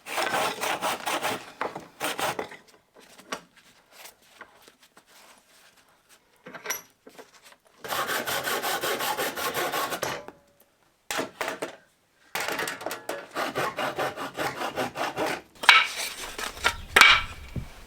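Hand saw cutting wood in three bouts of quick back-and-forth strokes with short pauses between them, followed by a couple of louder knocks near the end.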